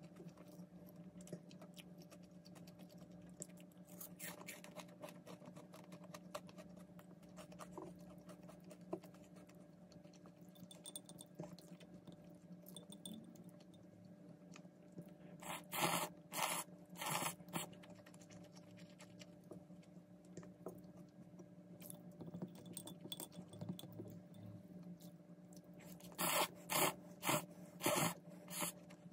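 Cold buckwheat soba noodles being eaten with wooden chopsticks: small clicks and chewing, then two runs of four or five short loud slurps, about halfway through and again near the end. A steady low hum lies under it all.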